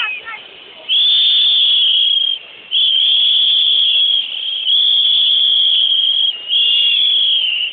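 A small plastic whistle blown in about four long, steady, shrill blasts, each lasting a second or more, with short breaks between them.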